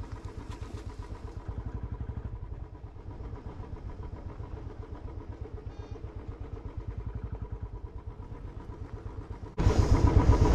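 Motorcycle engine running at low revs, a steady low putter. Near the end a louder rush of noise cuts in suddenly.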